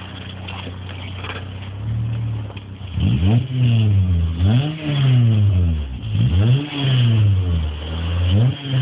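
VW Polo 1.4 8-valve four-cylinder petrol engine through a straight-through stainless steel cat-back exhaust: idling steadily, then blipped four times, each rev rising and falling back.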